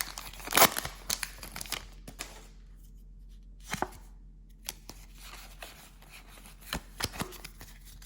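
Foil trading-card booster pack and its cards being handled. There is a run of crinkles and sharp snaps in the first two seconds, then scattered single clicks and snaps.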